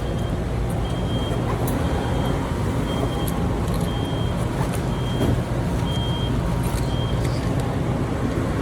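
Steady low machinery drone, with a short high-pitched electronic beep repeating about once a second.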